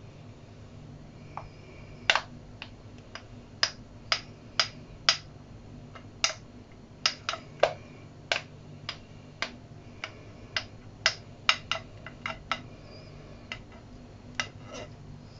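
Silicone spatula tapping and knocking against the rim of a mixing bowl to knock whipped cream off, a string of sharp irregular clicks, roughly two a second, some in quick pairs.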